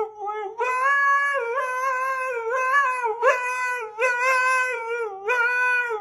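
A dog howling: about five long, drawn-out notes with short breaks between them, each wavering slightly in pitch, cut off abruptly near the end.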